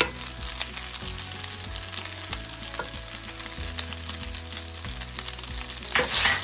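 Rice with vegetables and paneer sizzling in a non-stick wok, stirred and scraped with a wooden spatula. There is a louder stirring swish near the end.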